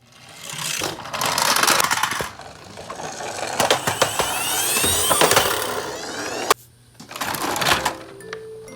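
Toy vehicles running down a slope: a loud whirring and rattling of small wheels and motors with some rising and falling whine, broken by a sharp knock about six and a half seconds in and a short lull before more clatter.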